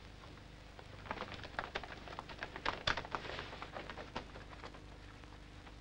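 Faint irregular crackling and rustling of running footsteps through dry leaves and brush. It starts about a second in, is densest in the middle and dies away near the end, over a low hiss from the old soundtrack.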